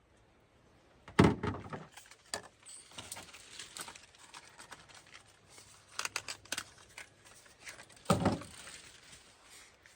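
Hand tools and chainsaw parts being handled during a spark plug change: two heavier thumps, about a second in and about eight seconds in, with light metallic clicks and jangles between them.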